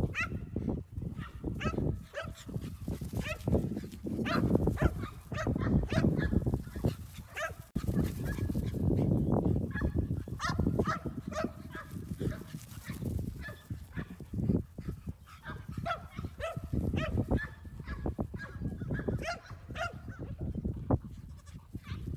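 Pygmy goats bleating over and over, many short calls overlapping, over a low rumble.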